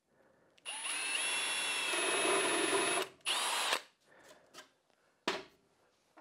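Cordless drill running into the wood of a plywood sled, a steady whine for about two seconds, a brief stop, then a second short burst. A single sharp knock follows about a second and a half later.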